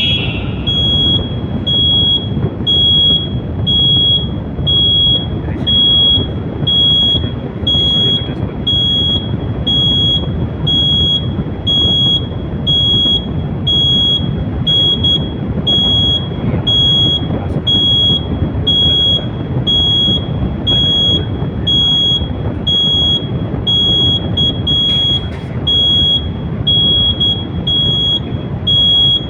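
Fire alarm sounder beeping during a system test: a single high-pitched piezo tone repeating evenly about once a second, over a steady low background rumble.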